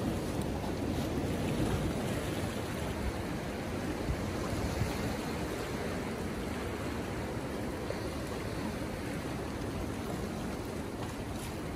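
Ocean surf washing over and around rocks, a steady rush of water without a break.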